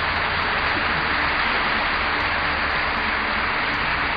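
Sustained applause from a large audience, heard as a steady, even roar on an old recording with the treble cut off.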